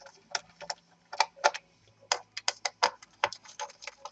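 Small, sharp, irregular clicks and taps of fingers handling laptop motherboard parts while unplugging the fan cable connector. The clicks come faster after about two seconds.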